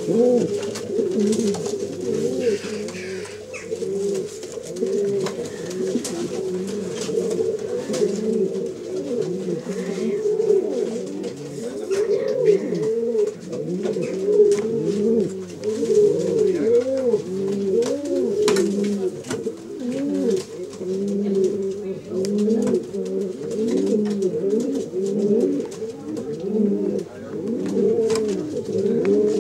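A loft full of domestic pigeons cooing continuously, many birds overlapping in a dense, rolling chorus of low coos.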